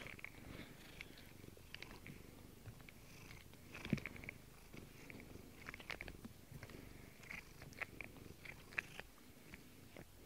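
Domestic cat purring steadily close to the microphone, with small clicks and smacks from its mouth and face on a rubber grooming brush, and one louder knock about four seconds in.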